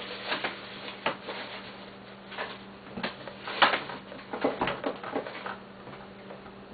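Irregular light clicks and taps of small hard objects being handled, a few at a time, over a faint steady hum.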